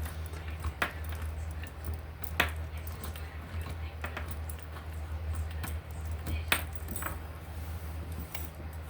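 Keychain of small metal tools and keys jangling and clinking as it is handled, with a few separate sharp clinks, over a steady low hum.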